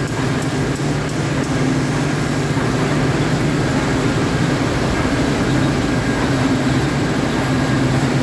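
Feket UV dryer and its sheet-feed conveyor running: a steady mechanical hum with a constant low drone.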